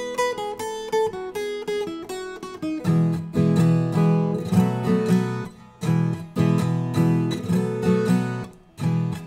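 Viola caipira, the Brazilian ten-string guitar, playing an instrumental passage in cururu style between sung verses. A picked melody gives way about three seconds in to louder, fuller rhythmic strumming, broken by two brief pauses.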